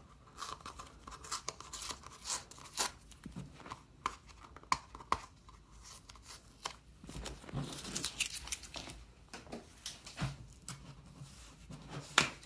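Blue painter's tape being peeled off a cardboard mailer: repeated short crackles and tearing, with rustling of the card, and a longer tearing stretch about halfway through.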